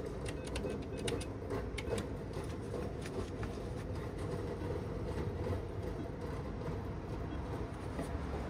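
Steady low rumble of a moving vehicle, with a run of light clicks and rattles over the first few seconds.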